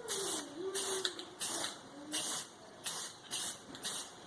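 Aerosol can of spray paint being sprayed in short, even bursts, about one and a half a second, coating small bolts and screws.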